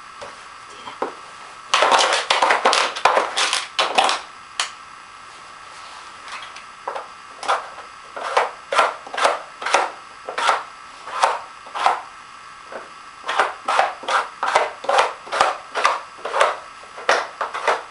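A dog crunching dry treats, with a quick run of crunches about two seconds in, then steady chewing at about two crunches a second.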